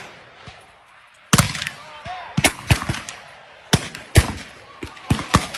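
Muzzleloading black-powder muskets firing along a line of shooters: after a brief lull, a loud report about a second in, then a ragged string of shots at irregular intervals, some near and loud, others fainter down the line.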